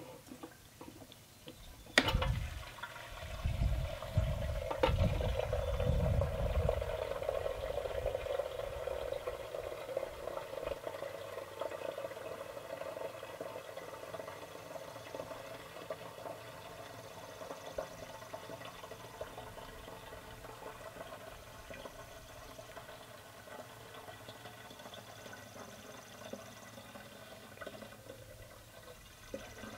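Gasoline pouring from a plastic gas can into a small Honda engine's fuel tank. There is a knock about two seconds in as the pour starts, glugging for the first few seconds, then a steady filling sound that slowly grows quieter.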